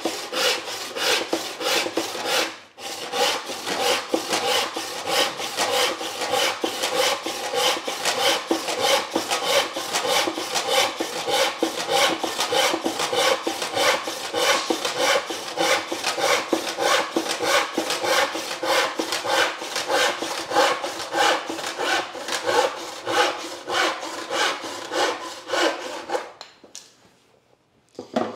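Freshly sharpened crosscut handsaw cutting through maple in quick, even strokes, with a steady ringing tone under the rasp. The strokes break off briefly about two and a half seconds in and stop near the end.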